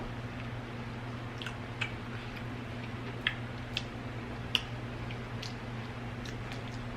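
Close-miked chewing of a spicy chili pepper: scattered soft, wet mouth clicks, about seven over a few seconds, over a steady low electrical hum.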